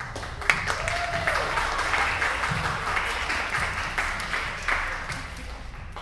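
Audience applauding, starting about half a second in and thinning out near the end.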